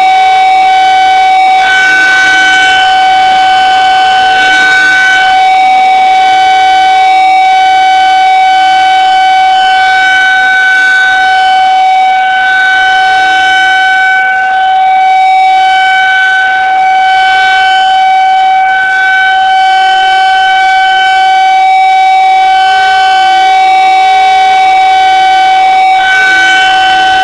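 Outdoor warning siren sounding a single steady tone for a test, very loud up close. Its pitch holds level while its strength swells and fades slightly every few seconds as the rotating horn turns.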